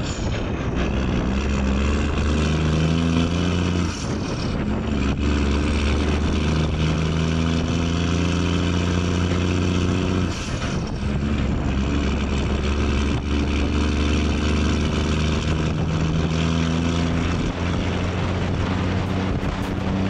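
Diesel semi truck towing a loaded trailer, its engine pulling steadily with heavy wind and road noise, heard from the back of the rig. The engine note breaks off briefly twice, about four and ten seconds in, between gears, and picks up again at a new pitch.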